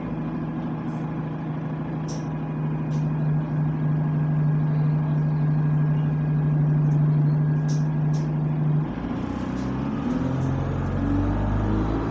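Bus engine and drivetrain heard from inside the passenger saloon while the bus is under way: a steady drone that changes about nine seconds in to a rising, shifting note as the engine picks up. A few short rattles sound through it.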